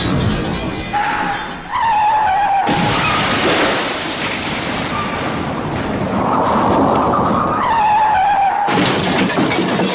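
Car crash sound effect: tyres squeal in skids about a second in and again near the end, with a long stretch of crashing and shattering between them.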